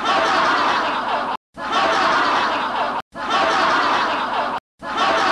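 A group laughing and snickering mockingly, a short laughter sound effect looped four times, each burst about a second and a half long with an abrupt cut to silence between.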